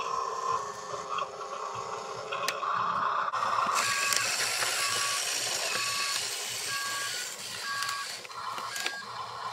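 Huina RC dump truck: a steady motor whine as the tipper bed comes down, then the truck moves off with a whir of drive motor and gears while its sound module gives short two-tone reversing beeps about once a second.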